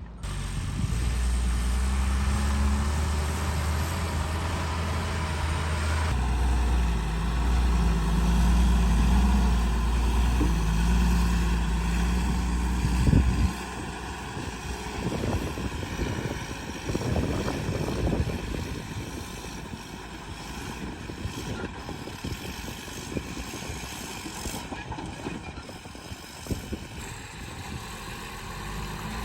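Tata 10-wheeler truck's diesel engine running under way, a loud low drone for the first half, then dropping suddenly to a quieter rumble with some irregular swells.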